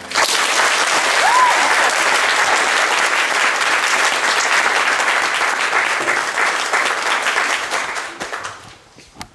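Audience applauding at the end of a song. The clapping starts just after the last piano chord, holds steady, then thins out and stops about eight and a half seconds in.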